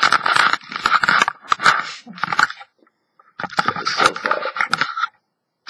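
Handling noise as the webcam is moved about: crackly rubbing and scraping right against the microphone, in two spells with a short quiet gap a little over halfway through.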